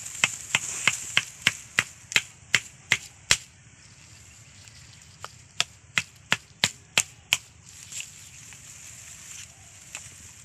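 Sharp wet slaps in shallow muddy water, about three a second, in two runs: one over the first three seconds or so, and another in the middle after a short pause. They come as a big catfish is grabbed on the mud and carried through the pond.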